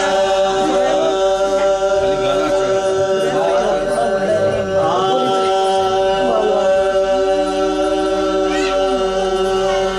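Men chanting a marsiya, a Muharram elegy for Imam Hussain: a lead voice wavers and glides over a steady held drone note that runs on unbroken.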